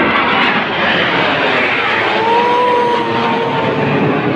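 Military jets flying over in formation: a loud, steady rush of jet engine noise. In the second half a faint tone joins it, sliding slightly down in pitch.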